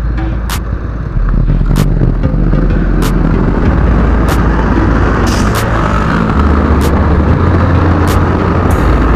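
Motor scooter pulling away from a stop and riding, its engine and heavy wind rumble on the mount microphone growing louder about a second in. Sharp clicks sound evenly about every second and a quarter.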